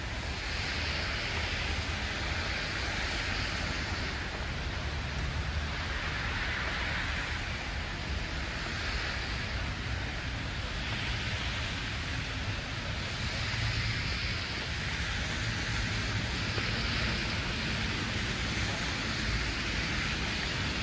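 Outdoor city street ambience in wet snow: a steady hiss over a low rumble, the hiss swelling and fading every two or three seconds.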